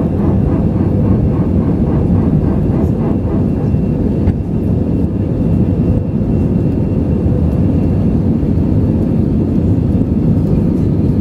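Steady, loud noise of an Airbus airliner's jet engines and airflow, heard from inside the passenger cabin.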